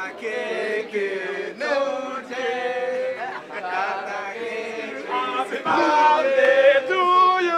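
A group of voices, men's most prominent, singing and chanting together in short repeated phrases, louder in the second half.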